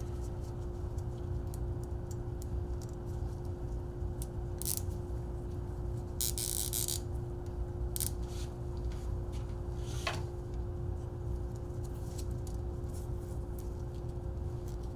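Plastic zip tie being threaded around the e-bike's chainstay and pulled through its ratchet: scattered small clicks and scrapes, with a longer ratcheting zip about six seconds in, over a steady low hum.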